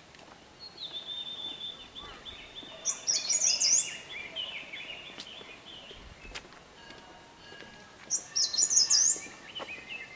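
Birds singing outdoors: one bird gives a loud, high, quick phrase twice, about six seconds apart, over steady chirping and twittering from other birds.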